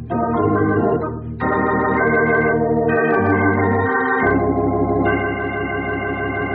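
Organ playing a short musical bridge for a scene change in a radio drama: a run of held chords that change every second or two.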